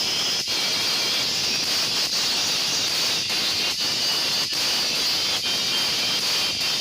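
Audio playing through Sennheiser CX 180 Street in-ear earphones, picked up by the microphone as a loud, tinny hiss with short dips about once a second.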